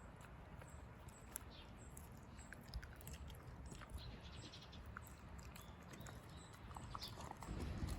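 A Shiba Inu eating: faint, scattered small clicks and smacks of chewing.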